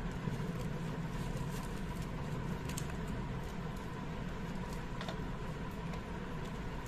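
Faint small clicks and rustles of hands tearing luchi and handling food over a steel plate, over a steady low hum.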